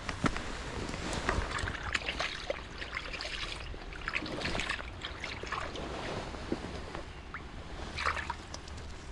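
Water trickling and splashing in small irregular bursts, with scattered light clicks.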